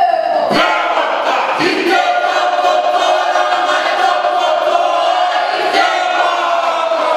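Group of school students singing a Māori waiata in unison, their voices holding long notes that slowly fall in pitch, with short breaks between phrases.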